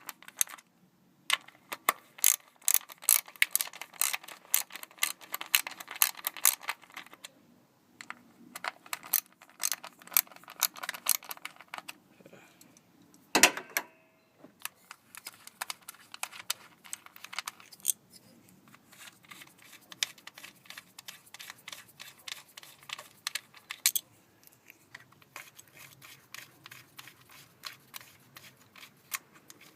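Ratchet wrench with a 10mm socket clicking in several bursts of rapid clicks as screws are loosened, with one louder knock about halfway through.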